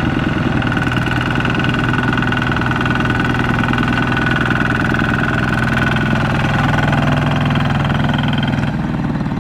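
Kubota walking tractor's single-cylinder diesel engine running steadily under load as it pulls a trailer loaded with rice sacks, a little quieter near the end.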